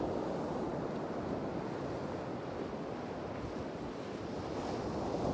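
Surf breaking and washing over a rocky shore, a steady rushing noise that swells again near the end, with wind rumbling on the microphone.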